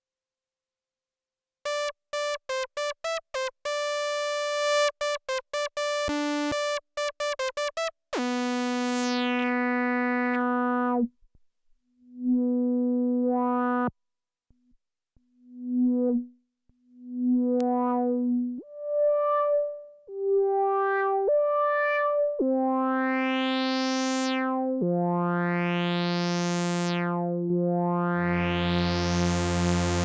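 Moog Grandmother monophonic analog synthesizer played note by note while the patch is adjusted. After a short silence comes a quick run of short staccato notes, then held notes whose brightness falls and rises as the filter cutoff is swept. Near the end a second, lower tone joins under the first, the detuned oscillators layering into a pad.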